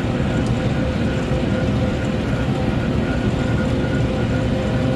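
Farm tractor engine running steadily, a constant low rumble with a faint steady whine over it.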